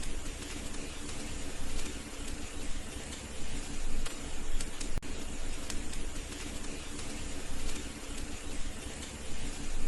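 Wood fire crackling in a fireplace: a steady hiss with scattered small ticks and one sharp pop about halfway through.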